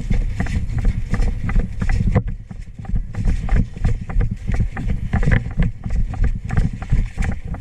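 Low rumble and rustling on a head-mounted camera's microphone, with many irregular knocks and thumps, typical of wind buffeting and handling noise while the wearer rushes forward on foot. A brief dropout about two seconds in.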